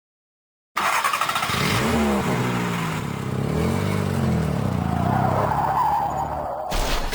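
Car engine sound effect revving, its pitch rising and falling, then tyres screeching in a rising squeal about five seconds in. Near the end it breaks off suddenly into a loud noisy burst.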